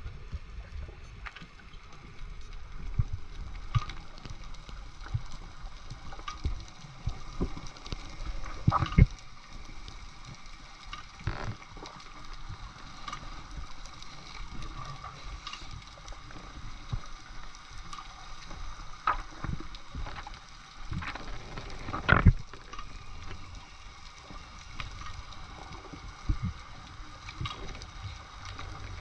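Water sloshing and gurgling around the microphone, with scattered sharp knocks and clicks, the loudest about nine seconds in and again past twenty seconds.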